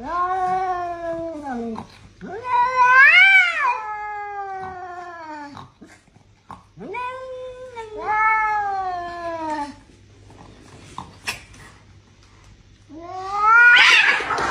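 Cat caterwauling: four long, drawn-out yowls, each rising and then falling in pitch, the second and the last the loudest.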